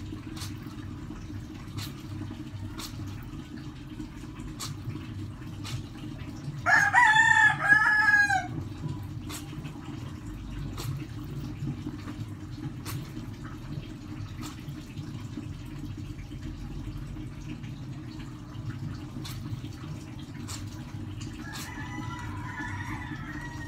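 A rooster crows loudly once, about two seconds long, starting around seven seconds in, with a fainter rooster call near the end. Underneath, clothes are scrubbed and swished by hand in a basin of water, with small splashes and clicks throughout.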